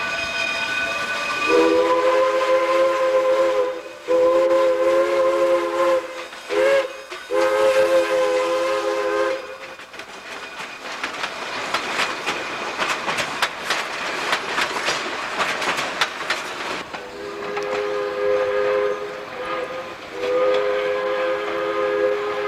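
Steam locomotive chime whistle blowing the grade-crossing signal: long, long, short, long. The coaches then pass with a rapid clatter of wheels clicking over the rail joints, and the whistle gives two more long blasts near the end.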